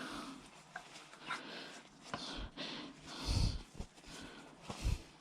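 Scattered handling noises from bicycle hub parts being worked on: small clicks and knocks, a few short rustling swishes, and two low thumps, one about midway and one near the end.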